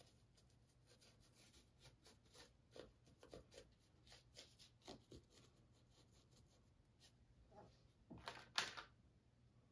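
Near silence with faint, irregular dabs and scrapes of a paintbrush working acrylic paint into a textured canvas, with a louder cluster of strokes about eight seconds in.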